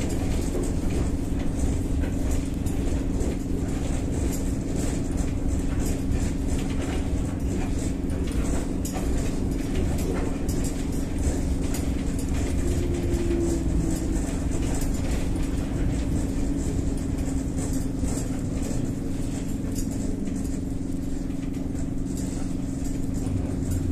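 Interior ride noise of a Kyiv-12.03 articulated trolleybus under way: a steady electric hum over low road rumble, with light rattling from the body and windows.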